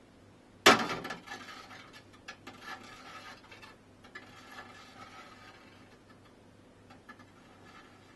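A glass tumbler set down hard on a stainless-steel drip tray, one loud clink about a second in, followed by a scatter of lighter clinks and rattles that die away over the next few seconds.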